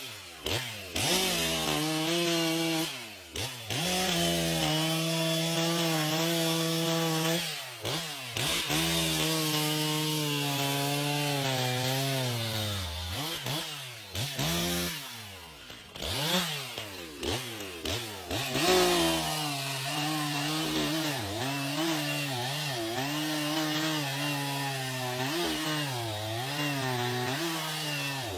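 Two-stroke chainsaw running at high revs while cutting wood, its pitch sagging under load and recovering, with a few brief drops in revs between cuts.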